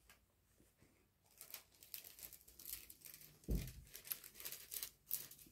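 Faint, intermittent rustling and scratching of stretch fabric and sewing thread handled by hand while a running stitch is sewn, starting about a second in. One soft bump comes about halfway through.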